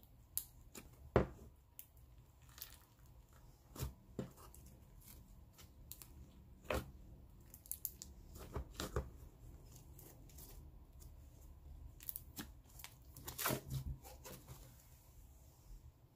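Thick clear-plus-clay slime being squeezed, folded and stretched by hand, giving irregular sticky crackles and small bubble pops, a few louder than the rest.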